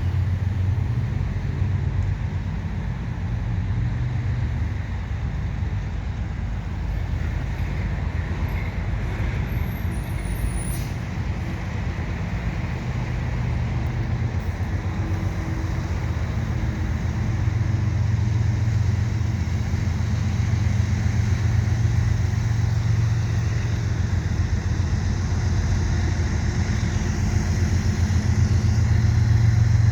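Diesel engines of a CN freight train's two GE locomotives running as the train rounds a curve, a steady low rumble that grows louder about halfway through and again near the end.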